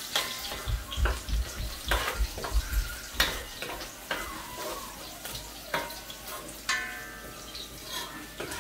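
Chopped onions frying in hot oil in a large metal pot, sizzling steadily, with a metal spatula clicking and scraping against the pot every second or so as they are stirred.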